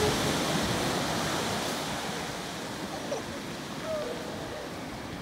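Steady wash of ocean surf, a little louder in the first second or two, with a couple of faint short calls about three and four seconds in.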